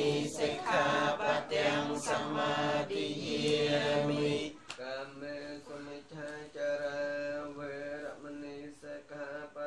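Theravada Buddhist chanting in Pali, voices reciting together on a steady chanting pitch. It breaks off briefly about four and a half seconds in, then continues more softly.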